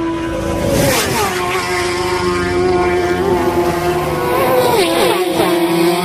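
Racing motorcycles passing at speed on a road course: high-revving engines whose pitch drops as a bike goes by, about a second in and again near five seconds, with a steady engine note in between.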